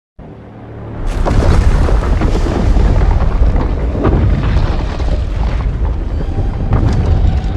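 Film sound effect of Evolved Godzilla: a deep rumbling blast that swells from a low rumble during the first second, then stays loud and heavy in the bass.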